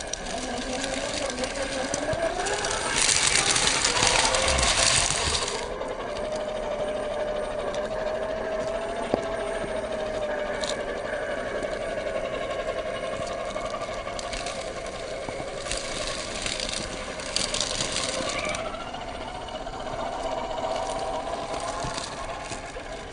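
1/10 scale RC Unimog truck's electric motor and gearbox whining as it drives off-road, the pitch rising and falling with the throttle. Louder bursts of rough noise come about three to six seconds in and again from about fourteen to eighteen seconds in.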